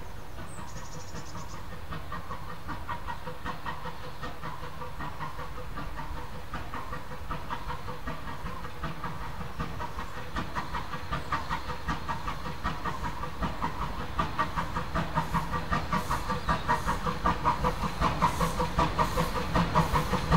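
An 0-4-0 saddle-tank steam locomotive working a train towards the listener: its exhaust beats start faint and grow louder and sharper as it approaches, about two chuffs a second by the end, over a hiss of steam.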